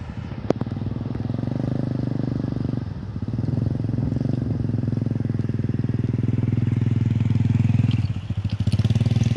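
Small piston engine running loud and close, with a fast, even firing pulse. It eases off briefly about three seconds in and again near the end. A single sharp click sounds about half a second in.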